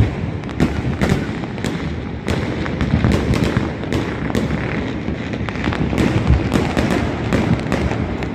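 Many fireworks going off at once across a city, a continuous rumble of distant bursts with many sharp cracks and bangs overlapping.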